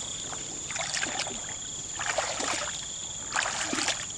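Footsteps wading through shallow muddy water in a flooded rice paddy, a sloshing splash about every second and a half. A steady high-pitched tone runs behind.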